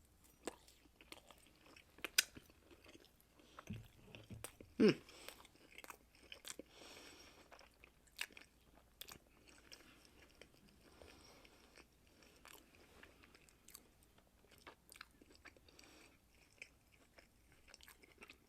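Close-up chewing of a breaded boneless chicken bite coated in hot sauce: faint, irregular crunching and mouth clicks, with a brief hum about five seconds in.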